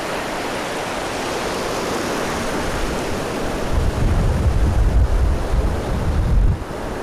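Ocean surf breaking and washing up the beach, a steady rushing noise, with wind gusting on the microphone from about four seconds in until shortly before the end.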